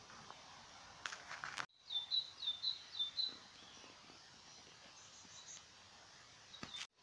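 A small songbird chirping: a quick run of about six short, high, repeated notes about two seconds in, and a few fainter high notes later, over a steady background hiss. A few soft clicks come just before the chirps.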